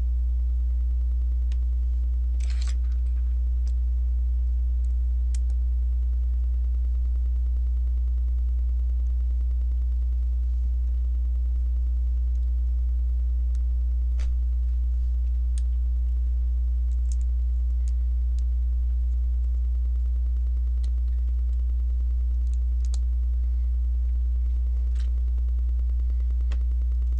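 A loud, steady, low electrical hum with fainter steady tones above it. Over it come faint, scattered clicks of plastic Lego pieces being handled and pressed together.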